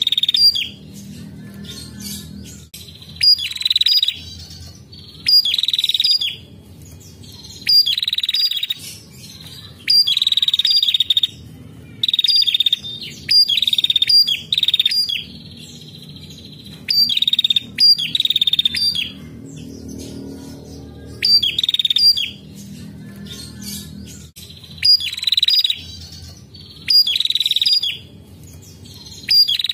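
Female prenjak calling over and over: high-pitched, rapid chattering bursts of about a second each, coming roughly every two seconds.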